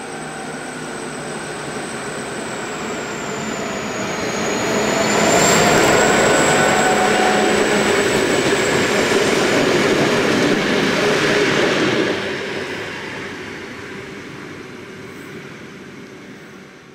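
Three G class diesel-electric locomotives running light, coupled together, pass at speed. The engines and the wheels on the rails grow steadily louder on approach and are loudest as the locomotives go by, with a high whine above them. Then the sound fades away.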